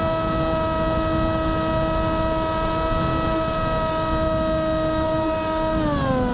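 FPV flying wing's electric motor and propeller whining at a steady high pitch with wind rush, heard from the onboard camera. Near the end the pitch drops as the throttle comes off.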